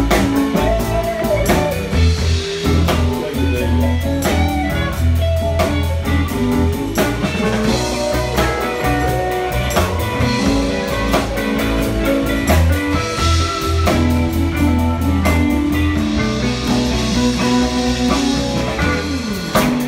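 Live band playing an instrumental number: electric guitar lines over a bass guitar and a drum kit keeping a steady beat.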